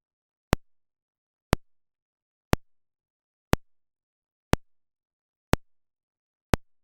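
Speaker polarity test signal: a sharp click pulse repeating exactly once a second, seven times, with silence between. It is the pulse that an FH-168 speaker phase tester reads to check whether a speaker is wired in the correct polarity.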